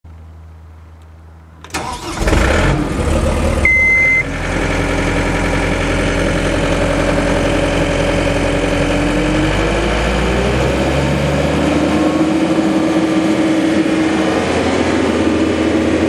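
John Deere 317 skid steer's diesel engine cranking and starting at about two seconds in, then running steadily. A short high beep sounds a couple of seconds after it catches, and the engine note rises a little about ten seconds in.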